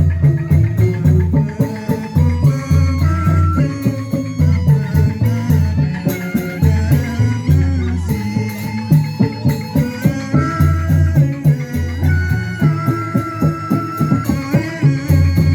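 Folk-style music with a pulsing bass beat, held melody notes and quick high ticking percussion.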